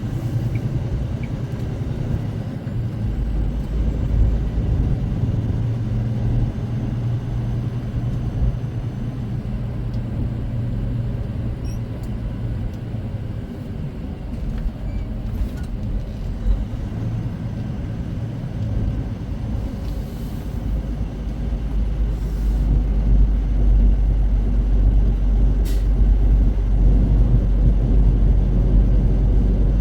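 Semi truck's diesel engine running, heard from inside the cab as a steady low rumble that grows louder about two-thirds of the way through, with a few brief sharp hisses or clicks.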